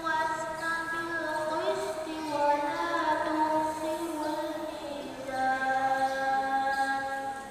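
A single young voice chanting a melodic Quran recitation into a microphone, drawing out long held notes with ornamented slides between them. The voice drops to a lower note about five seconds in and holds it almost to the end.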